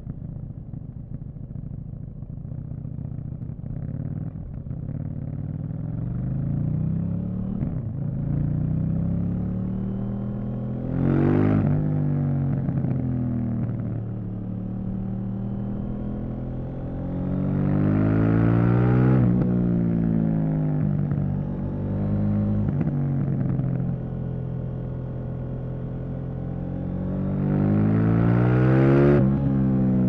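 KTM 790 Duke's parallel-twin engine under way, revs climbing and falling as it accelerates and rolls off. It rises hardest three times, each climb peaking and then dropping away.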